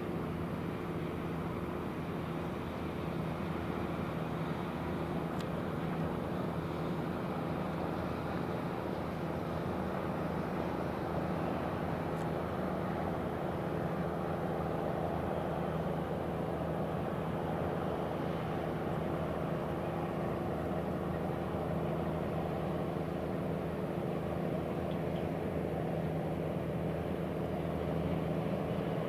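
Steady low drone of a ship's diesel engine, with a constant hum that holds the same pitch throughout and grows slightly louder near the end.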